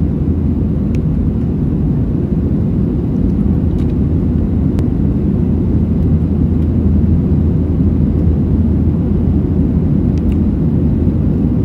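Passenger aircraft cabin noise: a steady low rumble from the engines and airflow, with a constant low hum underneath.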